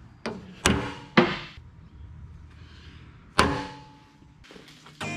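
Hand hammer striking a steel punch against a cast truck suspension beam, four ringing metal-on-metal blows: a light tap, two hard hits in quick succession, then one more after a pause of about two seconds. The blows are punching alignment marks by the casting seam so the parts can be lined up again on reassembly.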